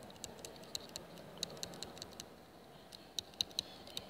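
Faint, irregular light clicks of a stylus tapping on a tablet's glass screen during handwriting, over low room noise. The three loudest ticks come close together near the end.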